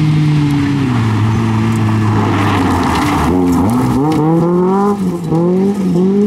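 Rally car engine on a gravel stage. The engine note drops about a second in as the car slows for a corner, with a hiss of gravel spraying as it slides through. It then revs up hard several times, with quick dips between, as the driver shifts up while accelerating away.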